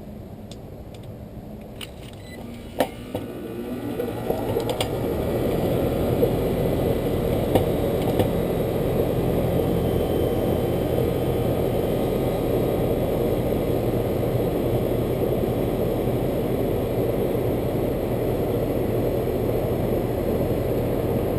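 Air conditioner condensing unit starting up. A few sharp clicks come about two to three seconds in, then the compressor and condenser fan spin up over a couple of seconds and settle into a steady running hum. The weak compressor gets going with the extra starting torque of a 5-2-1 hard-start kit.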